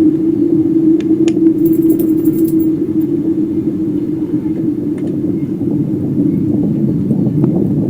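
A loud, low, steady drone held on one pitch over a rumbling undertone: the unexplained 'strange sound' heard in the sky from beyond the town, which the recorder calls loud and says is not an alarm.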